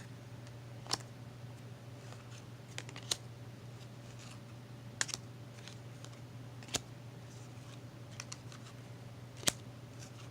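Trading cards being handled one at a time, giving short sharp snaps and clicks at irregular intervals, about eight in all. A steady low hum runs underneath.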